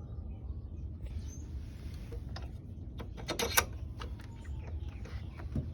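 Screen door and its closer being handled: scattered clicks and knocks, the loudest a sharp clack about three and a half seconds in, over a steady low rumble.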